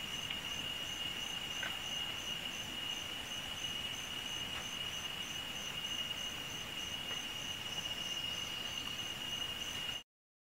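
Tropical rainforest insects calling: one steady high-pitched drone, with a faster insect chirp repeating evenly above it about three times a second. The sound cuts off suddenly near the end.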